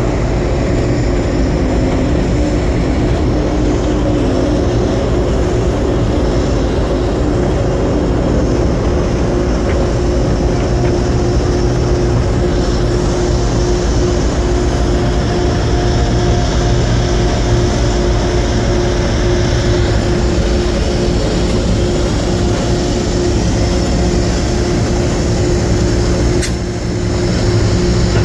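Diesel locomotive engine running steadily, heard from inside the cab as a continuous drone with a low hum and a steady mid-pitched tone. A brief click comes near the end.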